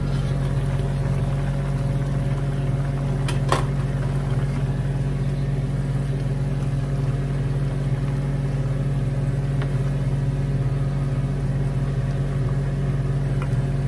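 A steady low electric motor hum from a kitchen appliance runs throughout. About three and a half seconds in there is a single sharp clack as the stainless pan lid is set down on the stove.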